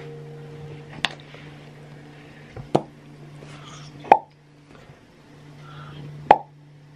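Four short, sharp popping sounds made with the lips, spaced a second or two apart, over a steady low hum.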